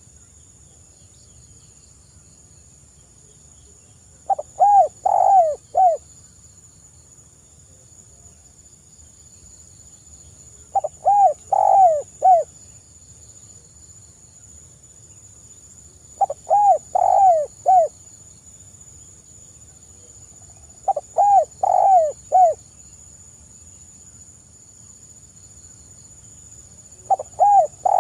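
Spotted dove (tekukur) cooing: a short phrase of several rounded coo notes, repeated five times with pauses of about five seconds between phrases.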